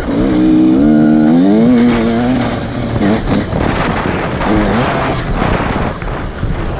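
Enduro dirt bike engine revving as it climbs a rough trail, its pitch rising for about a second and then breaking off at about two and a half seconds. After that comes rough, noisy engine and trail sound with one short rise in revs near the middle.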